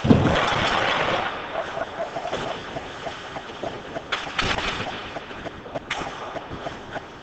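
Ice hockey play along the boards: a loud thud against the boards just as it begins, then skates scraping, sticks clacking and sharp knocks of puck and sticks against the boards, with the sharpest knocks about four and six seconds in.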